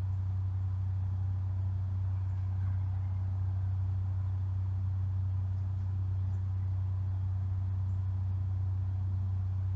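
Steady low-pitched drone of a food truck's motor running at idle, unchanging throughout.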